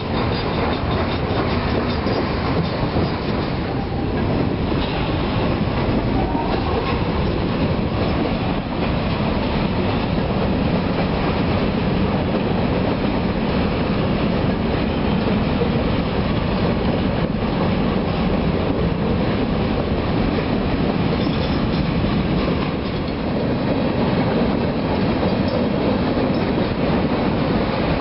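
Cars of a CSX mixed freight train (boxcars, tank cars and covered hoppers) rolling steadily past close by, steel wheels running on the rails.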